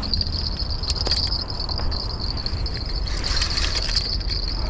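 A steady high-pitched drone over a constant low rumble, with a brief swell of broader noise about three seconds in.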